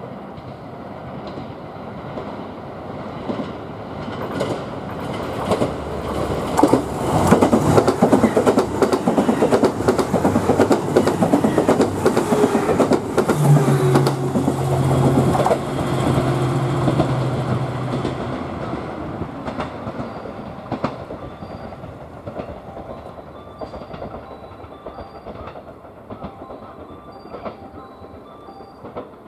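A JR West KiHa 189 series diesel limited express train passing close by without stopping. The wheels clatter over the rail joints along with the run of its diesel engines, growing louder as it approaches and loudest for about ten seconds as the cars go by. A steady low engine note comes near the end of the pass, then the sound fades as the train moves away.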